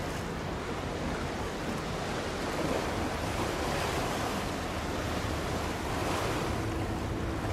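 Steady rushing wind and water noise across a harbour river, with wind buffeting the microphone. A faint steady tone comes in near the end.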